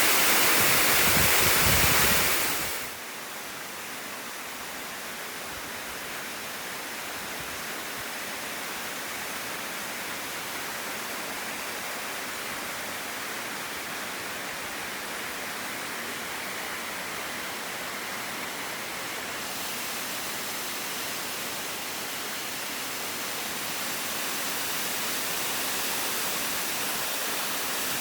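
Waterfall, a steady rush of falling water. It is loud with a low rumble for the first couple of seconds, then drops suddenly to a quieter even rush that grows slightly louder near the end.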